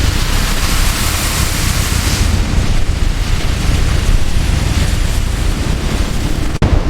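Steady, loud rushing noise like wind buffeting the microphone, with a deep rumble underneath and extra hiss in the first two seconds. It breaks off for an instant near the end.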